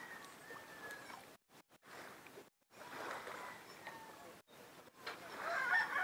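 A rooster crowing: a faint drawn-out crow fades away in the first second, and a louder crow starts about five seconds in.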